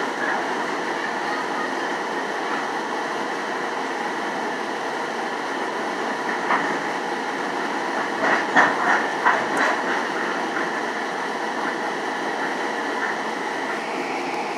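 SunRail commuter train heard from inside a passenger coach while running: a steady rolling rumble of wheels on rail. A little past halfway there is a quick run of sharp clacks.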